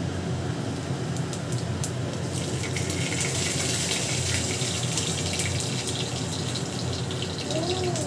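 Whole spice seeds sizzling and crackling in hot oil in a wok, the crackle growing denser about two to three seconds in, over a steady low hum.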